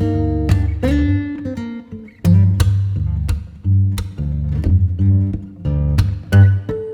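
Background music: acoustic guitar plucking over a bass line, with a short lull about two seconds in.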